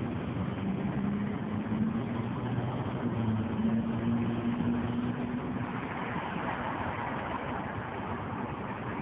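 A low engine hum over steady background noise, fading out about six seconds in.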